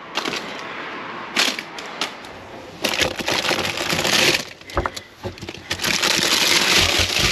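Plastic food packaging crinkling and rustling as a hand rummages through discarded groceries in a bin, in uneven loud bursts with a few sharp cracks.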